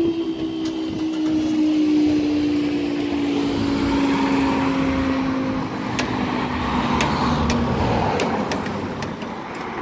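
Class 158 diesel multiple unit passing over the level crossing. Its engine drone sinks slowly in pitch as the train goes by, joined by a building rumble of wheels on rail and a few sharp clicks near the end.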